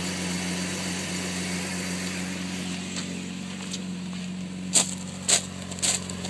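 Jeep Grand Cherokee's 4.0 inline-six idling steadily after a cold start, an idle the owner calls rough and suspects comes from the fuel pump coping with a now-pressurized fuel tank. Near the end, about four short, sharp noises stand out above the engine.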